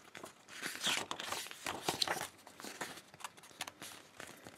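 Stiff cardboard pages of an Advent calendar book rustling and scraping in irregular bursts as they are handled and lifted.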